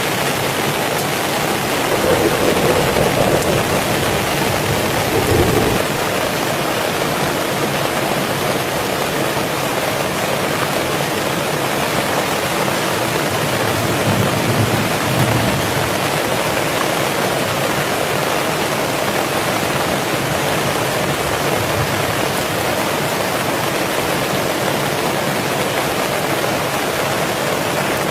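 Heavy rain falling steadily, with a louder, deeper swell about two seconds in and again around the middle.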